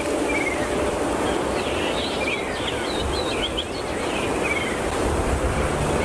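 Steady rushing outdoor ambience with short, high bird chirps scattered through it, thickest from about two to four seconds in.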